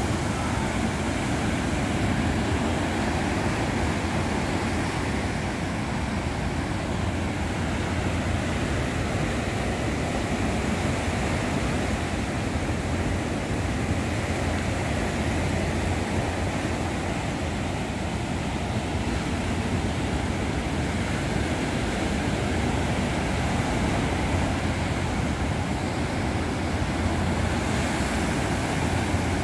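Rough sea surf breaking on a beach: a steady, unbroken rush with a low rumble underneath.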